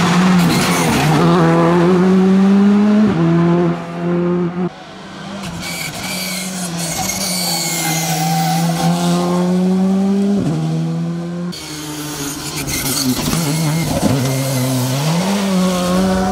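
Skoda Fabia R5 rally cars' turbocharged four-cylinder engines at full throttle on a stage. The pitch climbs and then drops sharply at each gear change, several times over, as one car and then another pass.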